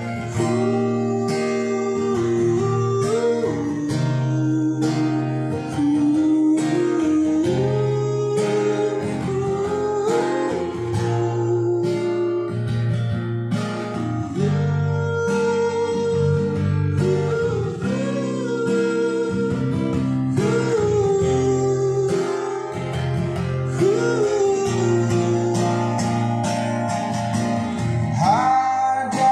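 A recorded pop song with guitar to the fore, played back through a Sony 1130 integrated amplifier and its speakers.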